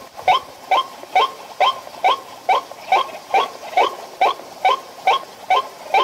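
White-breasted waterhen calling: a harsh note repeated evenly, a little over two a second, each one dropping in pitch.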